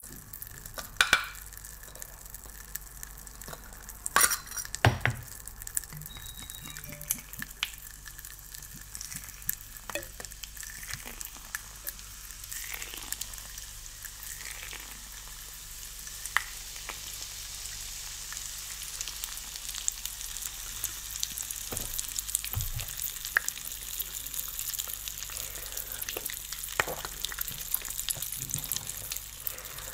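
Fizzy drink crackling and hissing as it is poured from a glass bottle into jelly cups. A few sharp clicks stand out, loudest about a second in and around four to five seconds in. The fizzing grows louder in the second half.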